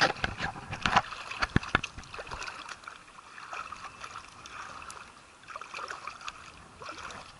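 Shallow seawater sloshing and splashing close to the microphone. Several sharp knocks and splashes come in the first two seconds, then a gentler, uneven lapping.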